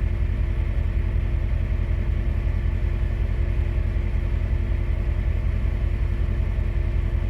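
2012 Duramax diesel pickup engine idling, heard from inside the cab: a steady low rumble with a constant hum over it.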